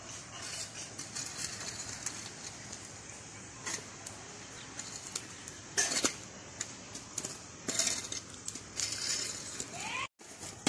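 Quiet outdoor background with a few short scrapes and knocks as a metal rod pokes at the charcoal embers under a biryani pot during dum cooking. A brief rising call sounds near the end.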